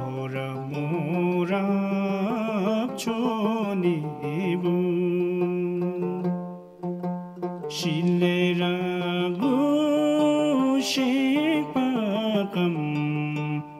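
Music from the start of a Bhutanese song in the Sharchop dialect: a melody of held notes with vibrato, with a short break about halfway.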